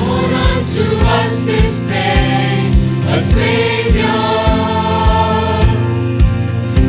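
Choir singing a Christmas gospel song over instrumental accompaniment, with a steady beat of about two low thuds a second.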